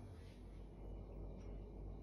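Faint, steady sound of a lit gas stove burner, a low hum and soft hiss with no distinct clicks.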